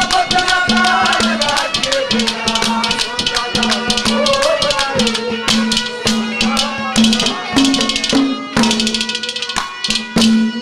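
Live ragni accompaniment: a harmonium holding steady notes, with fast rattling percussion and drum strokes throughout. A wavering melody line runs over it in the first half and then drops out, leaving harmonium and percussion.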